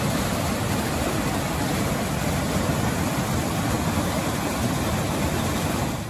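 Whitewater of a mountain creek rushing over rocks in a cascade: a steady, loud rush of water.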